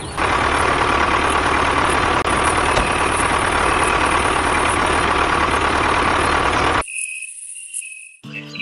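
Tractor engine running steadily, a dubbed sound effect for a toy tractor, cutting off suddenly about seven seconds in.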